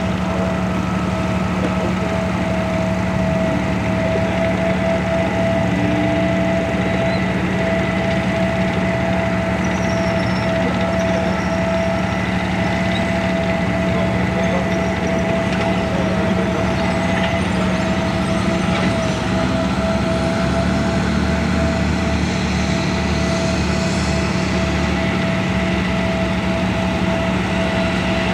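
Chieftain tank's Leyland L60 two-stroke multi-fuel engine running steadily as the tank drives along, a constant low engine note with a steady whine over it.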